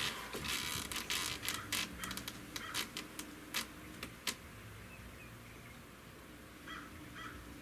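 Small clicks and handling taps as a scoped breakbarrel air rifle is settled on its bipod and aimed, dying away after about four seconds. A bird calls faintly a few times near the end.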